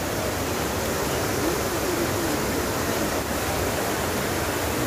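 Water of the Trevi Fountain cascading over its rocks into the basin, making a steady rushing noise, with faint voices of the people around under it.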